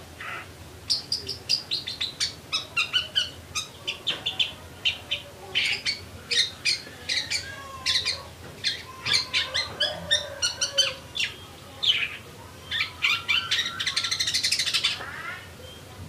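Long-tailed shrike (pentet) in full song: a fast, almost continuous string of short, high chirps and twitters with quick downward slurs, sounding like tree sparrow (burung gereja) calls.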